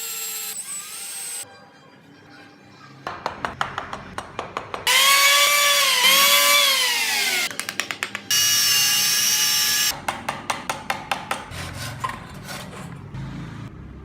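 Woodworking power tools cut together in short takes: a motor whine that rises and dips as the tool bears into the wood and then winds down, a steady high whine, and between them runs of rapid sharp tapping.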